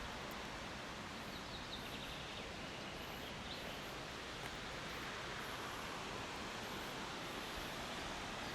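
Steady forest ambience: an even rushing hiss, with a few faint bird chirps between about one and three and a half seconds in.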